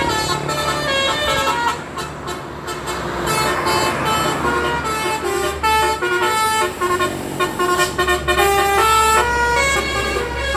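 Telolet horn, a multi-tone musical air horn, playing a quick melody of short stepped notes over a low engine rumble.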